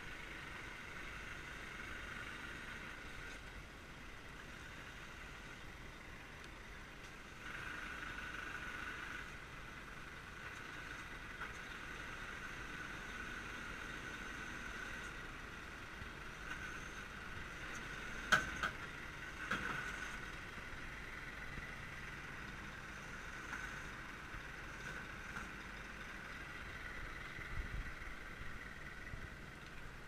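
Scania G490 concrete mixer truck idling steadily, with a steady high whine over the engine sound. Two sharp clicks a little past the middle.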